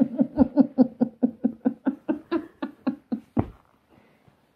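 A woman's long run of laughter: quick, even "ha" pulses about six a second that fade away and stop about three and a half seconds in.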